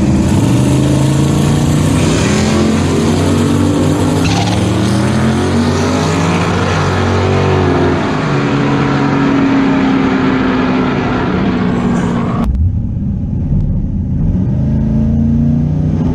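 Twin-turbocharged 5.3 L LS V8 pulling hard under boost, its pitch climbing and stepping through the gears. About three-quarters of the way through, the sound suddenly turns duller as the high hiss drops away, and the engine runs on at a lower pitch.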